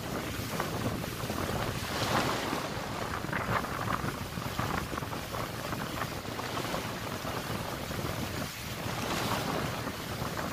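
Wind buffeting the microphone over the rush of choppy sea water around a moving boat, swelling louder in gusts, strongest about two seconds in and again near the end.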